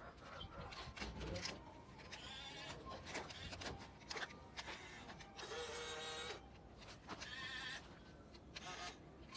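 Small electric toy motor whirring in short bursts, with plastic knocks and clatter.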